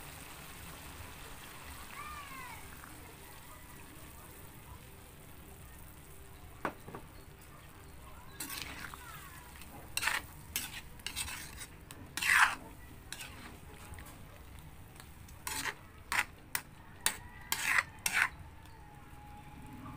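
A utensil stirring and scraping in a cooking pan over faint sizzling. About a dozen sharp scrapes come in a run from about eight seconds in.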